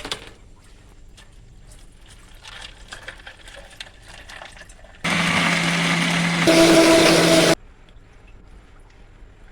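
Electric blender motor running on the cold coffee mixture for about two and a half seconds, jumping to a louder, higher speed partway through and then cutting off, after a few seconds of faint handling clicks.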